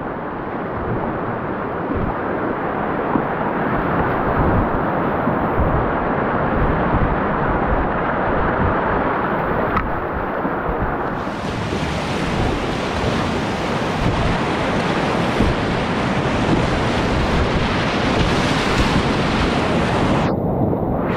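Whitewater rapids rushing around a kayak's hull, with wind buffeting the microphone. The water noise turns brighter and louder about halfway through as the boat runs into rougher water, and goes briefly muffled twice near the end.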